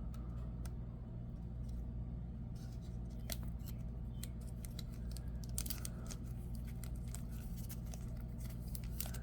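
Soft plastic crinkles and small clicks of a trading card being handled and slid into a plastic card sleeve, growing busier in the second half, over a steady low hum.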